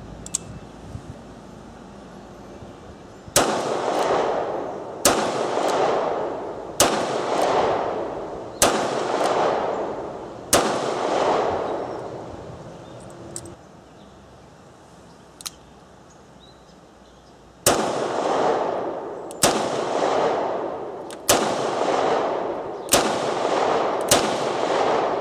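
Smith & Wesson 637 .38 Special snub-nose revolver fired ten times, in two strings of five shots about two seconds apart, with a pause of about seven seconds between the strings. Its five-shot cylinder is emptied each time. Each shot is followed by a long echo under the range's roof.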